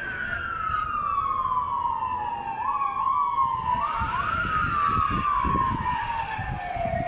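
Emergency siren winding down: its single tone falls slowly and steadily, jumps briefly back up twice about three and four seconds in, then keeps falling. A low rumbling noise runs underneath, stronger in the second half.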